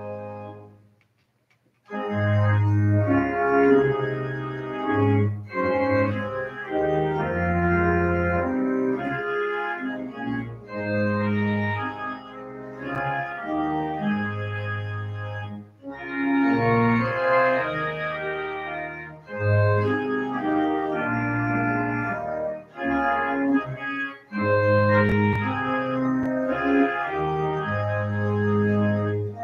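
Organ playing slow, sustained chords over a low pedal bass, in phrases separated by short breaks; it comes in about two seconds in after a brief moment of near silence.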